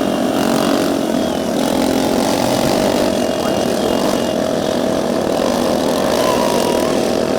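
Aircraft engine running steadily, a loud even drone with a constant whine over it.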